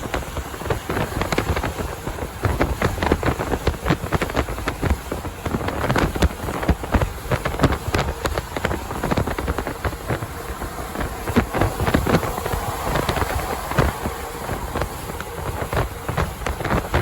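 Wind buffeting the microphone over the road noise of a truck driving on the highway: a steady rumble broken by irregular crackling gusts.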